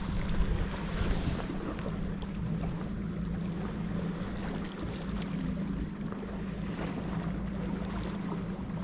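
Outdoor sea-shore noise: wind on the microphone over an even hiss, with a steady low hum running underneath.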